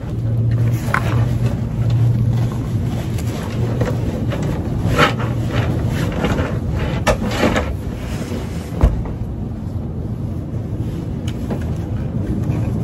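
Steady low rumble of a running motor vehicle, with a few light clicks and knocks scattered through it.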